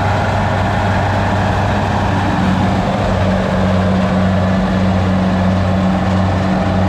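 Kubota DC70 combine harvester's diesel engine running steadily as the machine crawls on its tracks down a muddy bank into standing rice. A second steady tone joins the hum about two seconds in.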